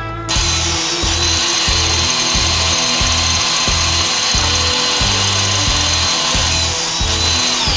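Table saw running steadily with a high whine; near the end its pitch starts to fall as it winds down.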